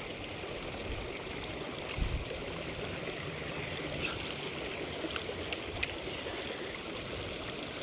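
Steady rushing water noise, with a dull thump about two seconds in and a few faint clicks.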